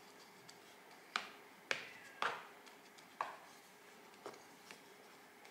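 Small garden trowel scraping through damp potting soil and knocking against a plastic seedling tray as soil is spread over sown pepper seeds. There are four short scrapes in the first few seconds, then two lighter taps.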